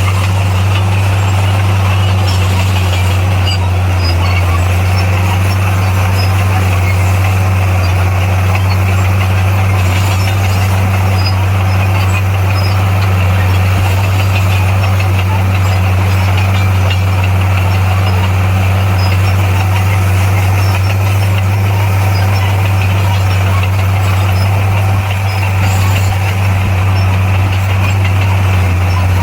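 Diesel engine of heavy earthmoving machinery running with a steady low drone, unchanging throughout.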